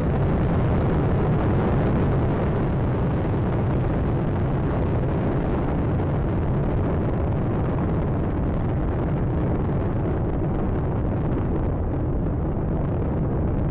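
Space Shuttle Atlantis climbing after liftoff, its solid rocket boosters and three main engines making a steady, deep rumble.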